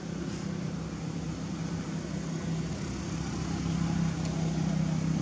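A steady low hum of a running engine, with no clear changes in pitch, growing slightly louder near the end.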